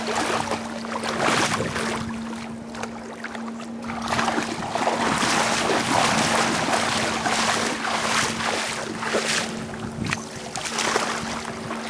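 Water splashing and sloshing in irregular bursts, heaviest through the middle, over a steady low hum.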